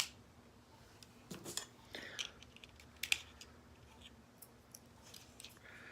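Small plastic clicks and knocks from a Transformers Titans Return Deluxe Brainstorm figure being handled and moved: one sharp click at the very start, then scattered light clicks.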